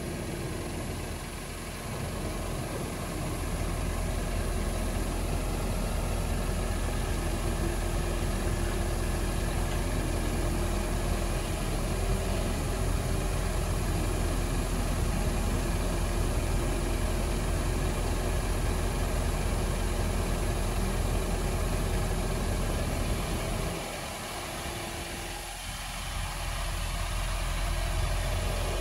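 Scania R560 V8 diesel engine running steadily, powering the hydraulics of the truck-mounted Fassi F245A crane as the boom is unfolded and raised. The drone softens briefly a second or so in and again for a couple of seconds near the end.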